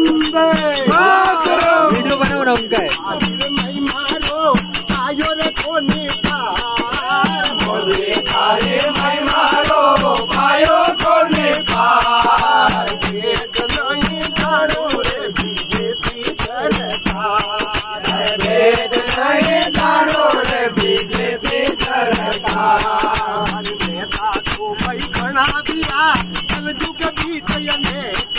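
Men singing a bhajan together in chorus, with jingling manjira (small brass hand cymbals) and a steady beat.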